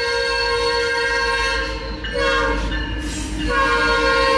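Canadian National diesel freight locomotive's air horn sounding the grade-crossing signal as it approaches: a long blast ends about two seconds in, a short blast follows, then another long blast begins about three and a half seconds in, louder as the train nears.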